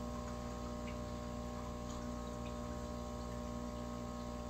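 Steady electrical hum of reef aquarium pumps, with water trickling and a few faint drips.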